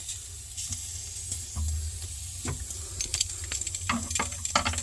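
Steady hiss of gas escaping from the refrigerator's copper tubing, with sharp metallic clicks and clinks in the second half as pinch-off pliers are set on the copper line to shut off the flow.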